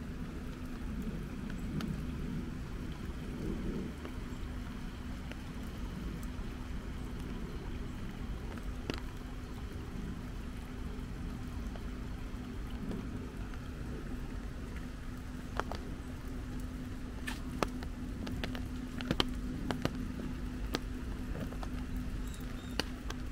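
Light rain pattering and dripping over a steady low hum. Scattered sharp ticks of drops come mostly in the second half.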